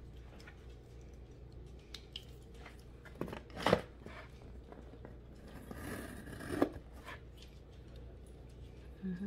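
Packaging being handled: scattered clicks and knocks, the loudest nearly four seconds in, and a crinkling rustle of cardboard and plastic around six seconds in, as the LED light bars are taken out of their opened box.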